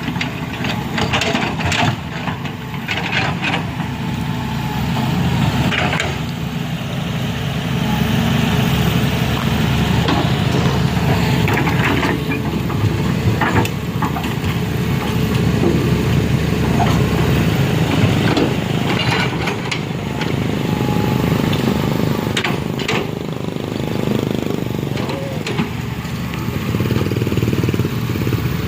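Heavy vehicle engine running steadily under load, with scattered knocks and clatter.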